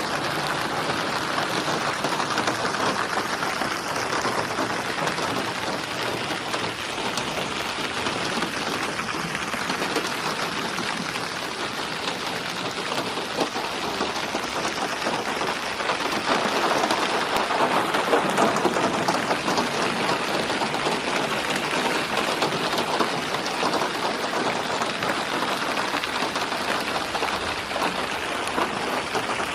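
Steady rainfall, an even hiss of drops with no pauses, swelling a little about halfway through.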